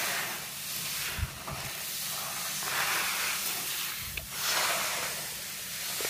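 Dried black gram seeds rustling and sliding as a hand sweeps through a pile spread on a woven plastic sack, a dry hiss that swells and fades several times.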